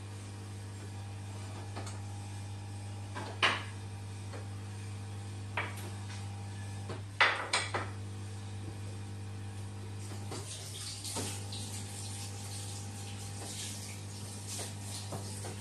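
Steady low electrical hum, with a sharp clink about three and a half seconds in and a quick cluster of clinks around seven seconds in, then a faint hiss like running water from about ten seconds in.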